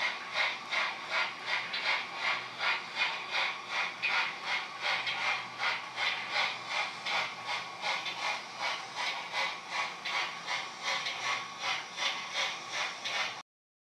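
Sound decoder in a model of a French PLM 231 Pacific steam locomotive playing a steady steam chuff, about three chuffs a second, fading slightly as the train moves off, then cutting off suddenly near the end.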